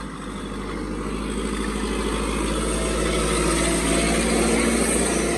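Diesel tractor engines running hard under heavy pulling load in a tractor tug-of-war, growing steadily louder.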